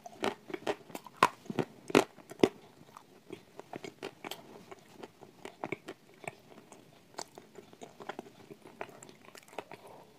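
Close-up biting and crunchy chewing of a chunk of edible clay coated in cream. Several loud, crisp crunches come in the first two and a half seconds, followed by softer, steady crackly chewing.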